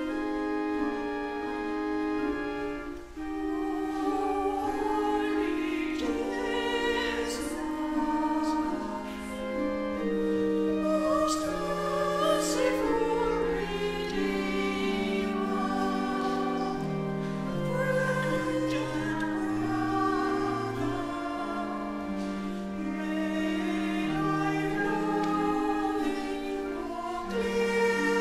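Choir singing slow music in several parts, with long held chords that move step by step.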